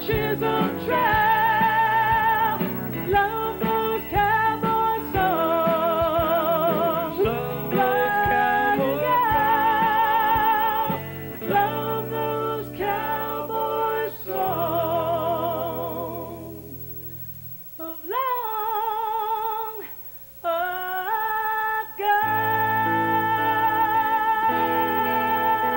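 Live band playing a song with a lead vocal sung with strong vibrato. About sixteen seconds in, the accompaniment thins out and a low note fades away. The voice carries on nearly alone for a few seconds, then the full band comes back in about twenty-two seconds in under a long held note.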